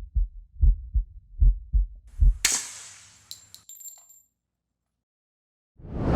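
A run of deep, heartbeat-like thumps, then a hissing whoosh with a thin high ringing tone that cuts off to silence. A loud, noisy burst starts near the end.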